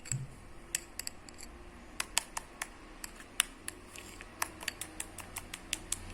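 A spoon stirring a thick cream-and-milk-powder paste in a small bowl, knocking against the bowl in quick, irregular clicks, mostly from about two seconds in.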